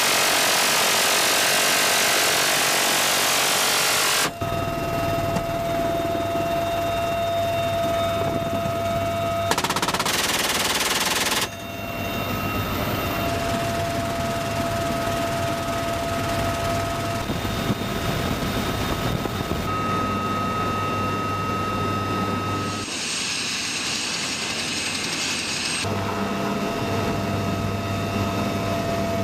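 Helicopter door-mounted rotary-barrel minigun firing two continuous bursts, the first about four seconds long, the second about two seconds long about ten seconds in. Between and after them the helicopter runs steadily inside the open cabin, with a high whine over a low hum.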